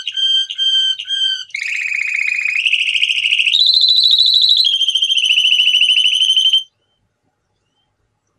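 Male canary singing: four slow repeated whistled notes, then a run of rapid trills, each held at one pitch, stepping up higher and dropping back. The song breaks off suddenly.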